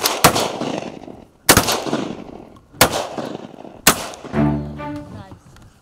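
A volley of five shotgun shots at ducks flying overhead, two in quick succession and then three more about a second apart, each trailing off in an echo. Near the end, background music with low string notes comes in.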